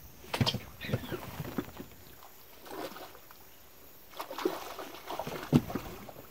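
Water splashing and sloshing in short, irregular bursts, loudest about half a second in and again near the end.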